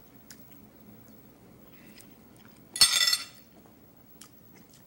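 A metal fork clinking against a china dinner plate: one sharp clink with a brief ringing about three seconds in, among a few faint clicks of eating.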